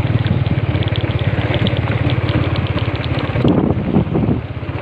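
Small motorcycle engine running steadily at a fast, even putter while riding along a rough dirt road, with some wind on the microphone.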